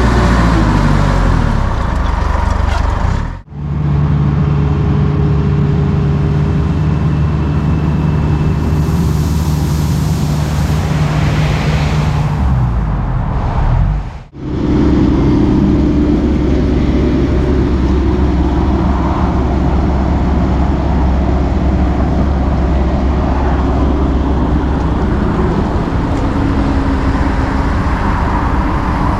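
Diesel engine of construction plant (digger or dumper) running steadily under work, its engine speed shifting from one stretch to the next. The sound drops out abruptly twice, about three and a half and fourteen seconds in.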